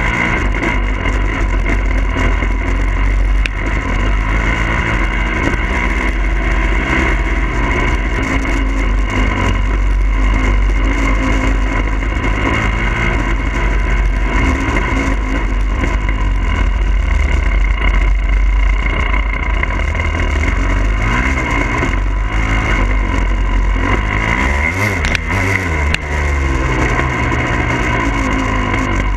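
The 2022 Husqvarna TE300i's two-stroke single-cylinder engine running under way, its revs rising and falling as it is ridden, with heavy wind rumble on the bike-mounted microphone.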